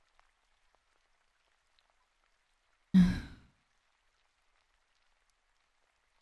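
A woman's single sigh about three seconds in, voiced and starting abruptly, then trailing off within half a second.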